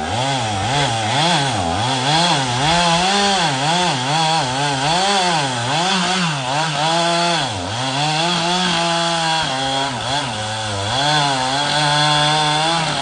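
Chainsaw cutting through a fallen tree, its engine pitch rising and falling over and over as the throttle is worked, with a deeper dip about seven and a half seconds in.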